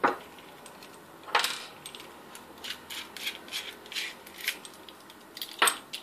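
Small metal parts of an aviation connector clicking and clinking as they are handled and set down on a workbench. A sharp knock at the start and another about a second and a half in, then a run of light clicks, and a louder clack near the end.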